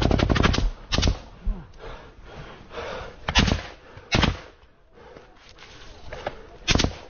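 Rifle fire: a rapid automatic burst that stops within the first second, then about four single shots a second or more apart.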